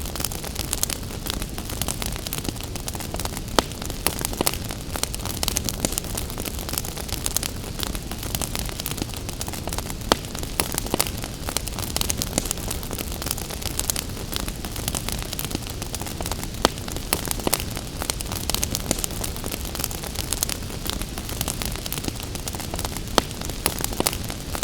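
Wood fire crackling in a fireplace, with frequent sharp irregular pops, over a steady hiss of gentle rain.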